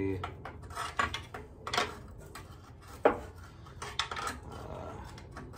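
A pry bar scraping and knocking against a rusted sheet-metal exhaust manifold heat shield as it is levered loose, with several sharp metallic clanks, the loudest about three seconds in.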